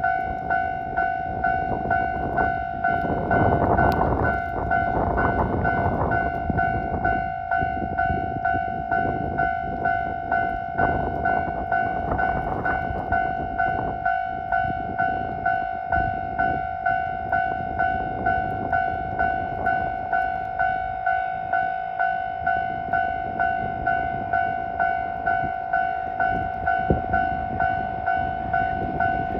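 Japanese level-crossing warning bell ringing steadily, about one and a half rings a second. A train rumbles past over the rails, loudest in the first several seconds, with scattered wheel knocks.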